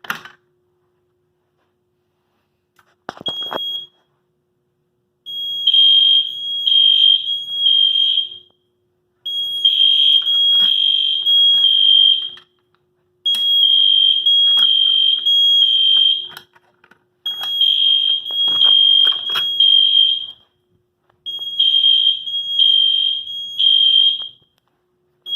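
Fire alarm sounding loud: a high-pitched tone beeping in the temporal-three evacuation pattern, three beeps, a pause, then three again. The system has gone into alarm during a test. A short clatter and a brief beep come about three seconds in, and the steady pattern starts a couple of seconds later.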